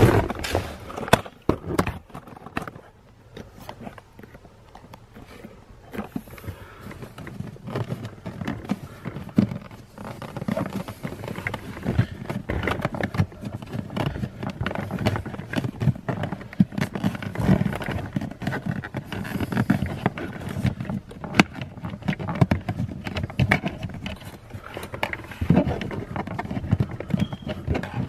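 Hands working wiring and plastic interior trim inside a car, tucking a cable under the panels: a busy, irregular run of clicks, knocks and rustling.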